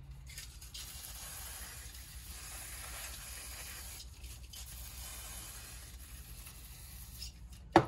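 Aerosol can of brake cleaner spraying in a steady hiss onto the inside of a differential cover, with a short pause about four seconds in. A single sharp knock near the end.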